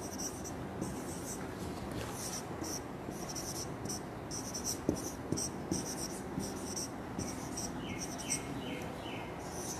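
Writing on a board: continuous scratchy strokes with a few light taps. An insect chirps in an even, repeating rhythm behind it, with a few short rising chirps near the end.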